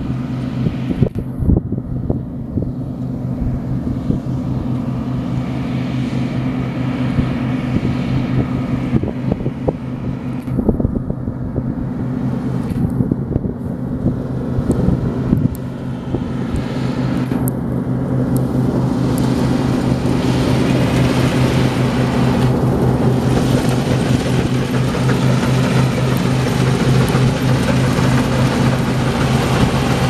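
New Holland TX65 combine harvester running steadily under load as it harvests wheat: a diesel engine hum over the rush of the cutting and threshing machinery. It gets louder in the second half as the machine comes close.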